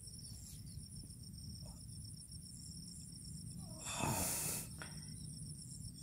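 Insects chirring steadily in a rice field, a fine high pulsing trill, over a low background rumble. About four seconds in, a short breathy rustle stands out briefly.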